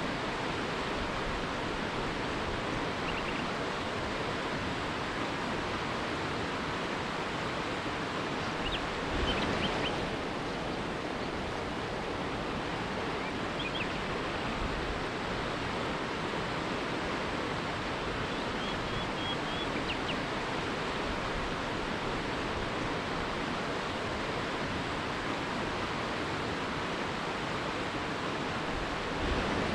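River rapids rushing steadily, with a few faint short bird chirps now and then over the water.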